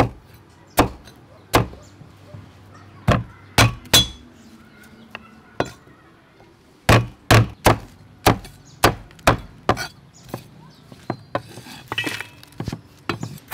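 Cleaver chopping through charred root on a thick wooden chopping board, each stroke a sharp knock: a few spaced strokes, a pause of a couple of seconds, then a steady run of about two or three strokes a second. Near the end, a short clatter as the cut pieces are scooped into a metal bowl.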